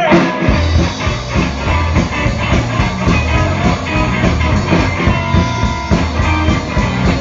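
Live blues band playing with a swing feel: electric guitar, bass guitar and drum kit keeping a steady beat.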